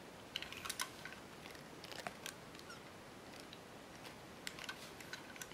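Faint scattered clicks and light rustles of fingers handling a small diecast toy tow truck on carpet.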